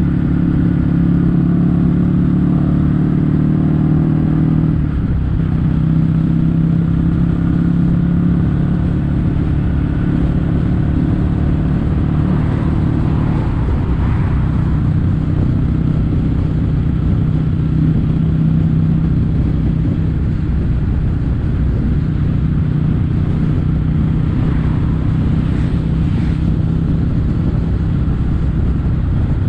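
Kawasaki W800's air-cooled parallel-twin engine running steadily under way through Yamato stainless-steel Cabton-style silencers. Its note shifts about five seconds in, then holds steady.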